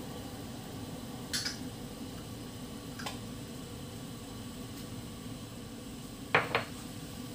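Sauce coming to the boil in a stainless steel saucepan, a low steady bubbling. A few sharp clicks, the two loudest in quick succession near the end.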